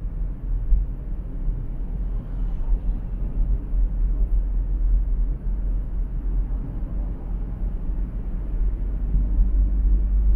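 Steady deep rumble of road and wind noise from a car driving on a freeway. A faint steady hum joins near the end.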